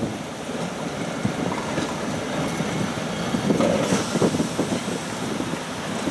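SNCF BB 63000 diesel-electric shunting locomotive running steadily as it moves slowly away along the track, a low rumble.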